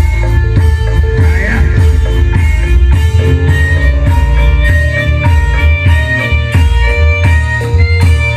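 Loud reog Indramayu band music: a melody of quick, stepped notes over a heavy, pulsing bass and steady drumming.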